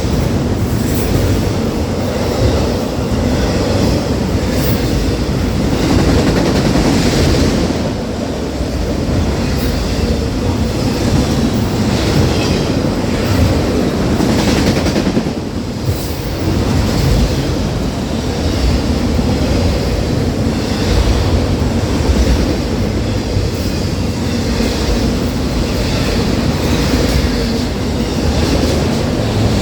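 Cars of a CN autorack freight train rolling past, a steady noise of steel wheels on rail with repeated clicks as the wheels cross rail joints.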